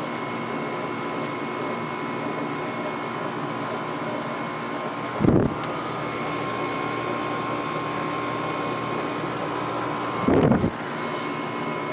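8000 BTU LG window air conditioner running on cool with its LG rotary compressor on: a steady whir and hum with a thin, steady high tone. Two brief low rumbles come about five and ten seconds in.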